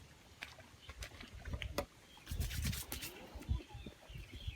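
Wind gusting across the microphone in irregular low rumbling bursts, with scattered sharp clicks and knocks from handling. Faint birds twittering in the background.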